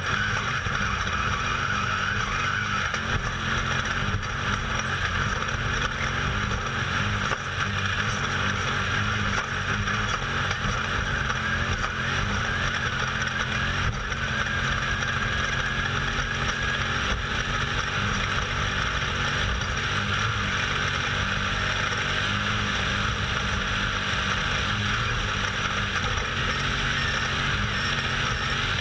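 Off-road race vehicle driven at speed, its engine running hard under a steady, continuous rumble of engine and terrain noise, heard from inside the vehicle.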